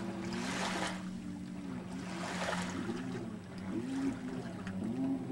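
Stand-up jet ski's engine revving up and down over and over as it carves tight turns, with two hissing bursts of spray, the first about half a second in and the second about two seconds in.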